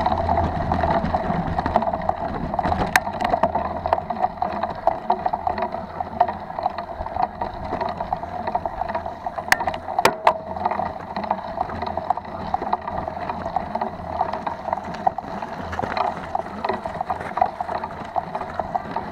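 Mountain bike riding over a loose, stony dirt track: steady crunching and rattling from the tyres and bike, with rumble from wind on the microphone. A few sharp clicks come about three seconds in and twice around ten seconds in.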